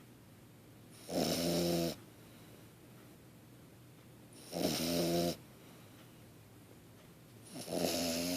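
French bulldog puppy snoring: three snores about three seconds apart, each lasting under a second, with quiet breathing between them.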